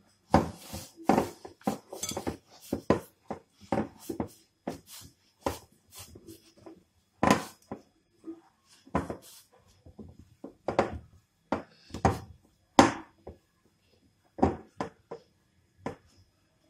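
Hands kneading and pressing a soft yeast dough in a cut-glass bowl, giving a run of irregular thuds and knocks as the glass bowl bumps against the countertop. The knocks come thickly at first, then more sparsely with short pauses.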